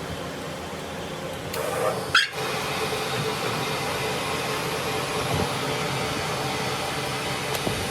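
A steady mechanical hum and hiss of a running workshop machine, broken by a brief louder burst and a sudden short dropout about two seconds in.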